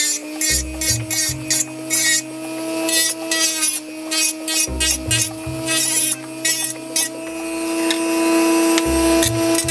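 Small rotary tool running with a sanding drum against the plastic of a model car body, its motor giving a steady whine that wavers a little in pitch, with scratchy rasping as the drum grinds the plastic.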